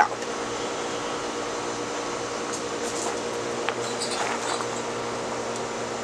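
Southern Fan Co. Tara ceiling fan running: a steady motor hum with a few even tones over the rush of air from its spinning blades.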